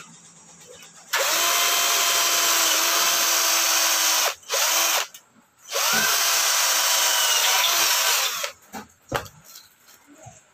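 Power drill boring through the aluminium screen frame where the screen roller sits, making the hole for a rivet. The motor spins up and runs steadily for about three seconds, gives a brief blip, then runs again for about two and a half seconds. A couple of sharp clicks follow.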